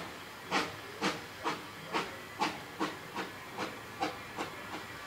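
Exhaust beats of a replica Baldwin 2-6-2T narrow-gauge steam tank locomotive working under steam, a regular chuffing of about two to three beats a second that quickens slightly.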